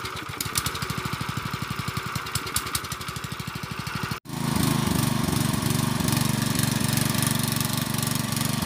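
Small Branco gasoline-engine water pump running steadily just after starting, its firing a fast, even pulse; about four seconds in the sound cuts and comes back louder. The pump is failing to lift the water up the pipe, which the owners put down to missing rubber seals and too little water pressure.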